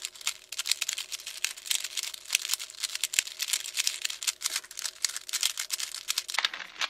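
A 3x3 Rubik's cube being turned quickly by hand: a fast, continuous run of plastic clicks and rattles as the layers snap round while the last-layer corners are flipped into place. The clicking stops near the end.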